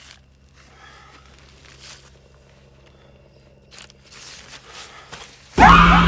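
Faint footsteps and rustling on the forest floor, then, about half a second before the end, a sudden loud horror score sting breaks in: falling swoops over a steady low drone and rumble.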